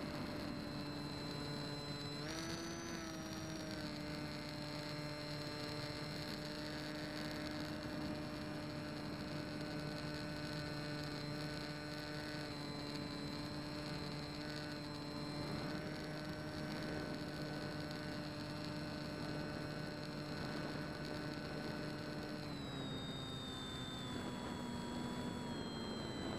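Electric motor of a Bixler RC foam plane, heard through its onboard camera: a steady whine over rushing air. The pitch steps up slightly about two seconds in and falls over the last few seconds.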